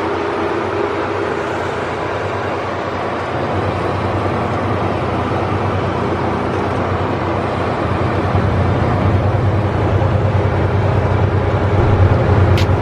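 A vehicle engine running steadily with a low drone, growing louder in the second half. There is a short sharp click near the end.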